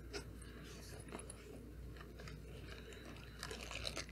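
Faint rustling, crinkling and small clicks of knife boxes and their packaging being handled and opened, a little busier near the end.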